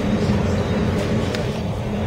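Steady low rumble of a New York subway train running on elevated track, heard from inside the car through its window, with a couple of faint clicks about a second in.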